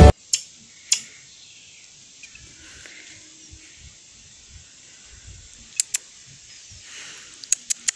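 Faint outdoor ambience in a rural yard, broken by a few sharp clicks: two near the start, a pair around six seconds in, and a quick run of them near the end, typical of a phone being handled while filming.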